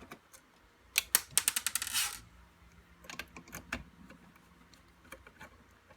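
Small hard clicks and a brief quick rattle of clicks as screws are taken out of a plastic printer housing with a Phillips screwdriver, followed by scattered lighter clicks.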